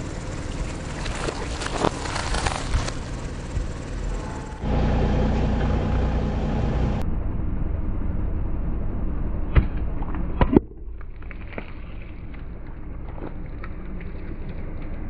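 Car tyre rolling slowly on wet asphalt with small scattered crackles, then the car's engine running steadily. About nine and a half seconds in, two sharp loud pops a second apart as plastic yogurt cups burst under the tyre, followed by quieter small clicks.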